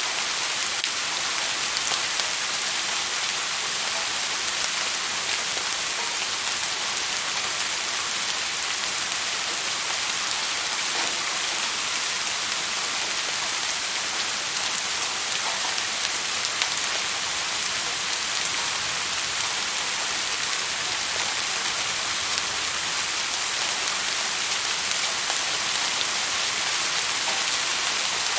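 Steady rain falling, an even hiss with scattered drop ticks and no letup.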